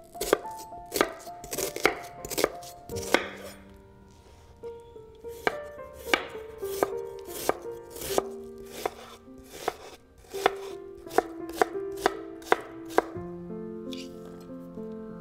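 Chef's knife chopping a yellow onion on a wooden cutting board: sharp knocks of the blade through the onion onto the board, roughly one or two a second, stopping near the end. Soft background music plays underneath.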